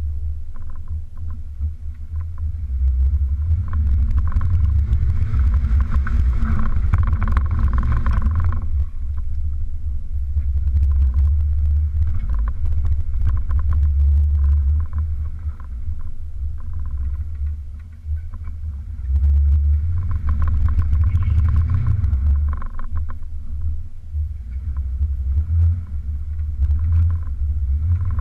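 Toyota's engine running with a deep rumble, heard from a camera on the hood, swelling louder twice as it is throttled up while the vehicle crawls through mud.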